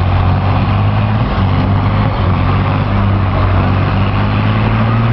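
John Deere 6030's turbocharged six-cylinder diesel running hard at steady high revs under heavy load, dragging a weight-transfer pulling sled.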